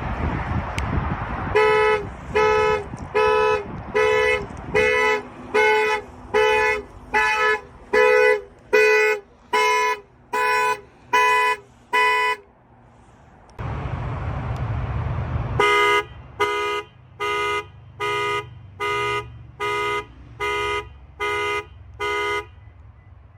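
Car horn honking in a steady run of short, evenly spaced blasts, about one and a half a second: a car's panic alarm going off. The honks stop for a few seconds, filled by a rushing noise, then start again at the same pace.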